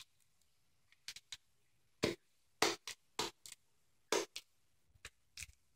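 Fluffy slime of clear glue, shaving gel and borax being kneaded, stretched and slapped between bare hands while it still sticks to the fingers, making irregular short sticky smacks and squelches, roughly two a second.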